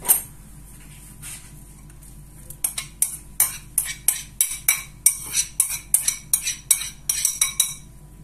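A single knock, then a quick run of clinks, about four a second for some five seconds, of a utensil tapping a ceramic bowl as chopped red onion is knocked out of it.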